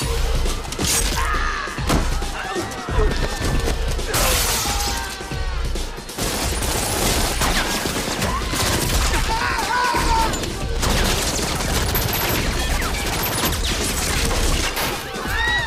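Action-film fight mix: gunshots, shattering and hard impacts over driving club music with a heavy, regular bass beat, with people screaming and crying out.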